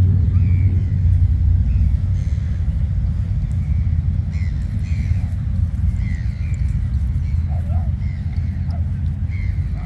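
Wind buffeting the phone's microphone: a steady low rumble, with faint short high chirps now and then.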